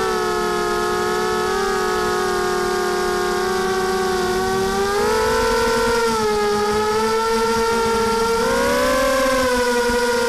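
Mini H quadcopter's four T-Motor 2206 brushless motors spinning Gemfan 5030 two-blade props, heard from the onboard camera as a steady whine of several close tones. The pitch rises about five seconds in and again about eight and a half seconds in as the throttle comes up.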